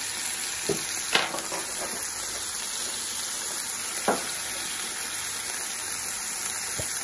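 Chicken pieces frying in olive oil in a nonstick pan, a steady sizzling hiss, broken by a few short, light knocks.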